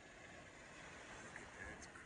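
Faint, steady wash of ocean surf.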